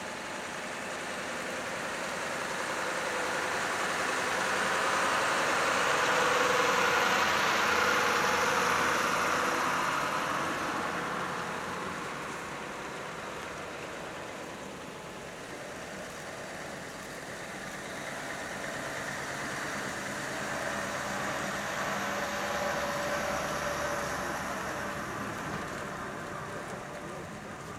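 Two heavy diesel truck-and-trailer units driving slowly past one after the other, their engine and tyre noise swelling and fading twice as each passes.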